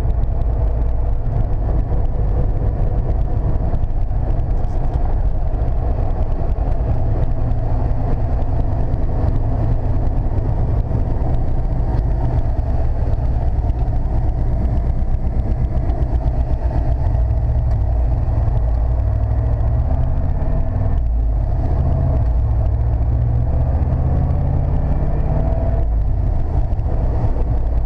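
1995 Chevrolet C/K 1500 pickup heard from inside the cab while driving: steady engine and road noise.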